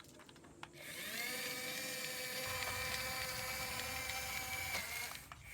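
Small electric motor of a toy excavator whirring: a few clicks, then a steady whine that starts about a second in, rises briefly, holds level and cuts off near the end.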